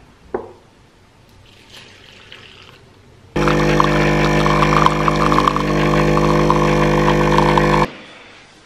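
Capsule coffee machine's pump buzzing steadily as it brews coffee into a cup. It starts a little over three seconds in and cuts off suddenly about four and a half seconds later. Before it there are only faint sounds of milk being poured onto muesli.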